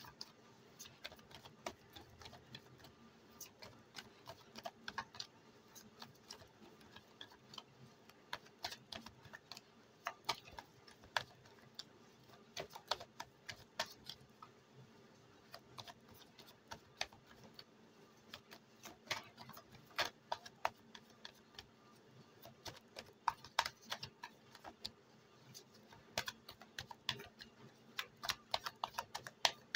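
A deck of tarot cards being shuffled by hand: quiet, irregular clicks and flicks of cards against each other, coming in clusters and growing denser near the end.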